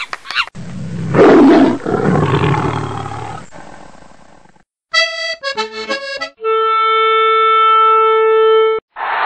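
A string of dubbed comedy sound effects: a loud roar that fades over about three seconds, then a few quick reedy notes and one long held reedy note, as from an accordion or harmonica, which cuts off sharply near the end.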